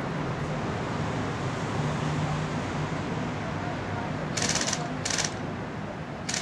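Three short bursts of airsoft gun fire, each a quick rattle of shots lasting about a third of a second, come about four, five and six seconds in over a steady rushing background noise.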